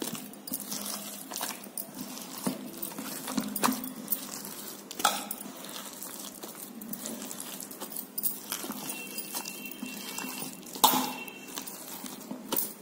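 A hand mixing and squeezing coarse ground lentil batter in a steel bowl, with scattered soft clicks and clinks from glass bangles knocking on the bowl; one sharper clink about two seconds before the end.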